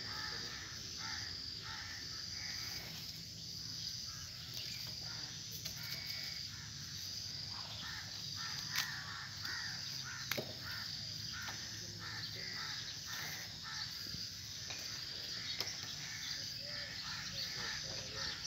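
Outdoor ambience of birds cawing over a steady high, evenly pulsing chirp of insects. Two sharp clicks sound about nine and ten and a half seconds in.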